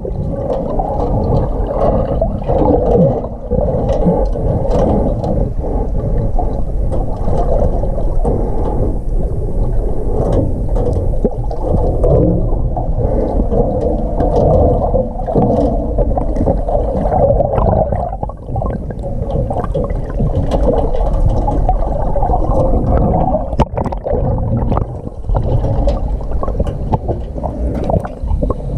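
Muffled underwater sound through a GoPro's waterproof housing: a steady low wash of moving water with scattered clicks and small pops.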